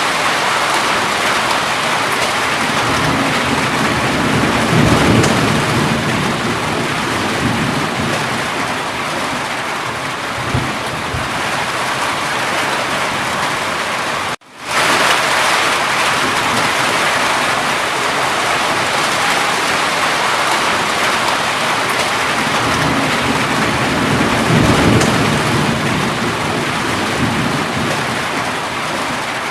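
Steady heavy rain falling, with low rolling thunder swelling twice, about five seconds in and again near the end. The sound cuts out completely for an instant about halfway through.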